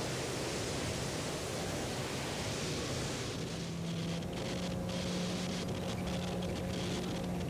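Steady rush of airflow past a light aircraft's wing-mounted microphone. About three seconds in the hiss thins and a steady hum from the Zenith 750 Cruzer's Viking 130 engine comes through as the plane nears the runway to land.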